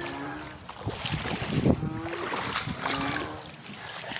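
Typhoon wind and floodwater rushing, with several short, low calls repeating about once a second.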